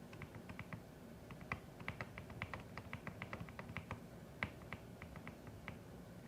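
Typing on a CIDOO ABM081 mechanical keyboard: a run of quick, irregular keystroke clicks that thins out near the end.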